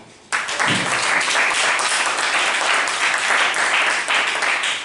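Applause from a room of people, breaking out suddenly just after the start as many hands clap together.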